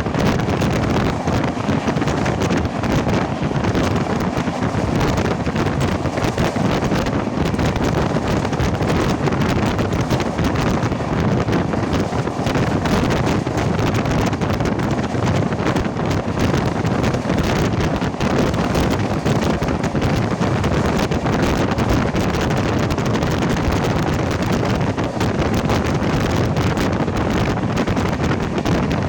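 Steady rush of wind over the microphone mixed with the running noise of a passenger express train travelling at speed, even and unbroken throughout.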